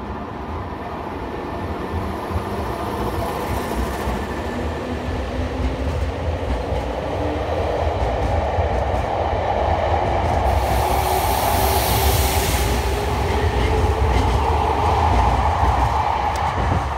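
Semboku Rapid Railway 3000 series electric train pulling out of the station and gathering speed. A whine from its motors slowly rises in pitch while the wheel rumble grows louder, and a burst of hiss comes about ten seconds in.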